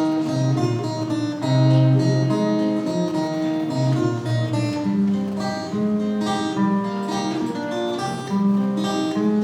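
Acoustic guitar playing an instrumental break between sung verses of a song.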